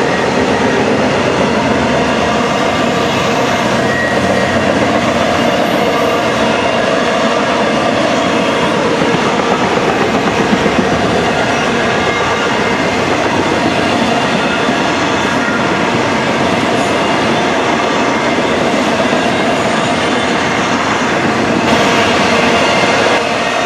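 Double-stack intermodal freight cars rolling past steadily, steel wheels running and clattering on the rails.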